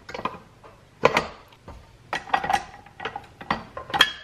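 Stainless steel mixing bowl and flat beater clinking and knocking as they are fitted onto a bowl-lift stand mixer: a series of separate sharp metal clicks, some with a brief ring.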